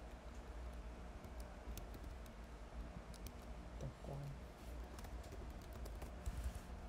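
Typing on a computer keyboard: scattered light key clicks, coming faster in the second half, over a low steady hum.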